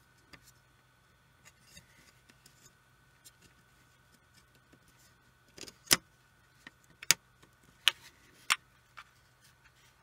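Light taps and small clicks of a circuit board being handled and pressed into a small plastic device housing, then four sharp, loud clicks in the second half as parts are pushed and snapped into place.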